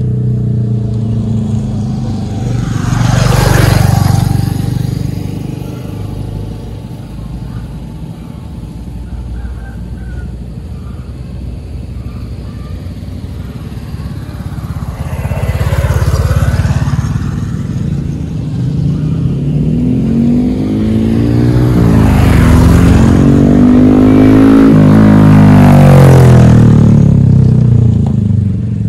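Motorcycles passing by on the road, one after another. Short pass-bys come about 3 s and 16 s in, then a longer, louder one from about 20 to 27 s whose engine pitch drops as it goes past.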